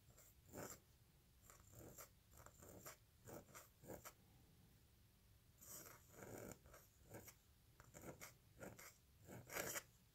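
Faint scratching of a pointed steel dip-pen nib on paper, drawn in short, irregular strokes as letters are written.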